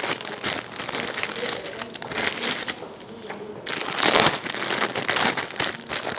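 Plastic Richeese instant-noodle packet crinkling and crackling as it is handled and pulled open by hand, with a louder stretch of crackling about four seconds in.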